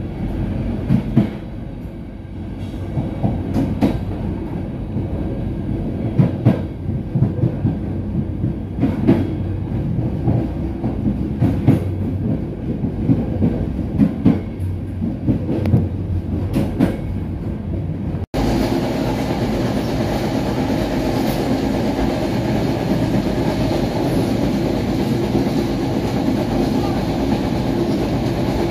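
A passenger train running along the track: a low rumble with irregular sharp clicks of the wheels over the rails. About two-thirds through, it cuts abruptly to a steadier, brighter rolling noise with fewer clicks.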